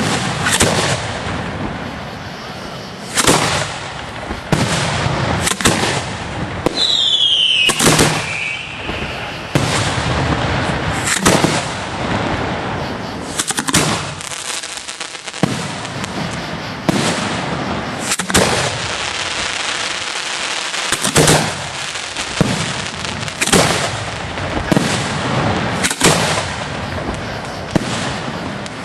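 Aerial fireworks going off in quick succession: repeated sharp bangs and bursts over continuous crackling. There is a descending whistle about seven seconds in.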